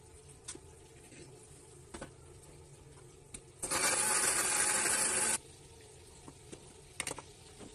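Electric mixer grinder with a steel jar running in one short burst of about two seconds, blending tamarind with water into a purée; it starts and stops abruptly. A few light knocks of the jar and utensils come before and after.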